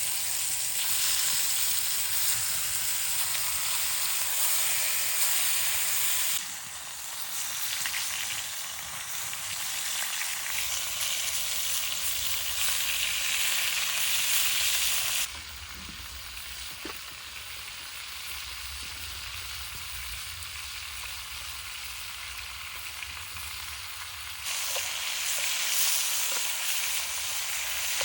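Food sizzling and frying in a cast iron Dutch oven over an open fire, a dense steady hiss. It drops and rises abruptly in level a few times, with a quieter stretch in the middle third that carries a few small pops.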